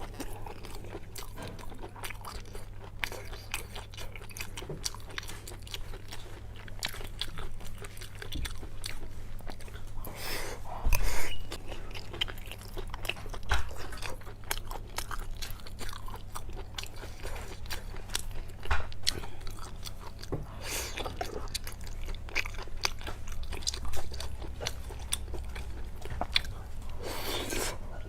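A person chewing and biting food close to the microphone: a steady run of small crunches and wet mouth clicks, with a few louder bites now and then.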